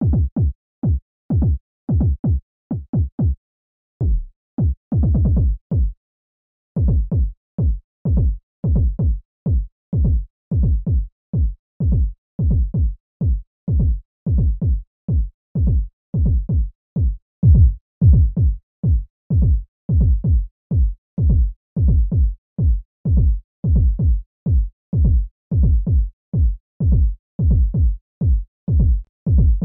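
A tech house kick-drum sample played as a bass line from a sampler, soloed with its highs filtered off: short low notes that drop in pitch. There are a few irregular notes at first, then a steady looping pattern of about three a second from about seven seconds in.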